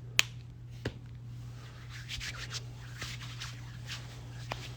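Hands rubbing lotion together: a faint soft rubbing, with two small clicks near the start, over a steady low hum.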